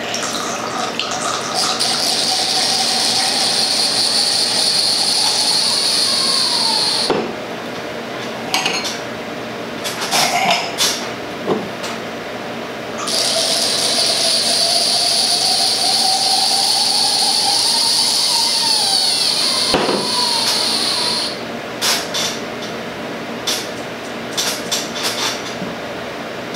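Red wine poured through a handheld Kassi wine aerator into a wine glass, twice: each pour is a steady airy hiss of several seconds with a tone rising in pitch as the glass fills. Glass clinks between the two pours and after the second as glasses and the aerator are set down.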